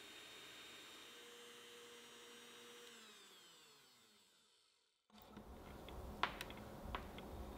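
Electric hand mixer whipping eggs and sugar into a thick foam. Its motor whine holds steady, then falls in pitch as the mixer slows about three seconds in, and fades out just before five seconds. A few light clicks follow.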